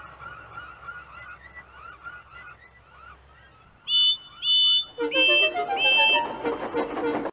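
A run of short bird calls, then two loud, high whistle blasts about half a second apart. More short whistle peeps follow over a rising run of musical notes.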